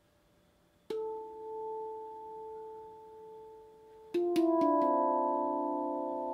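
RAV Moon steel tongue drum in D Integral tuning, played by hand: one note struck about a second in, then a quick run of about four notes a little after four seconds. The notes ring on and overlap, fading slowly.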